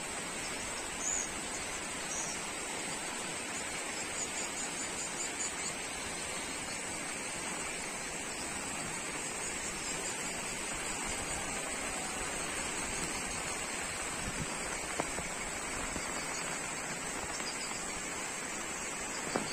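Muddy floodwater of a swollen river rushing steadily past, a continuous even noise.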